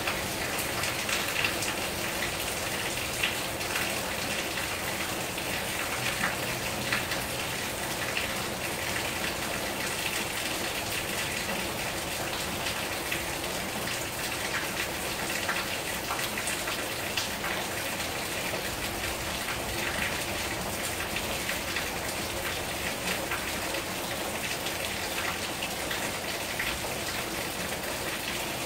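Steady rain falling on pavement and grass, with scattered sharper drop hits close by.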